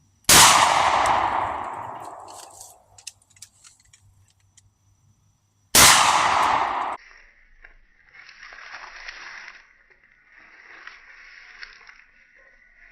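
Two shotgun slug shots about five and a half seconds apart. The first is a 12-gauge pump shotgun firing a 1-ounce slug, its report ringing out over about two seconds. The second is a 20-gauge pump shotgun firing a 7/8-ounce slug, its report cut off suddenly after about a second. Faint hiss and a thin steady high tone follow.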